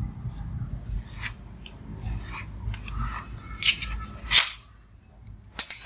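Pen scratching across cardboard in short strokes as lines are drawn along a steel ruler, with a sharp tap about four and a half seconds in and a louder scrape near the end.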